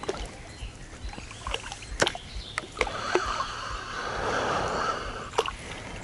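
Water splashing and sloshing as a hooked small bream is drawn in to the bank, with a couple of sharp clicks.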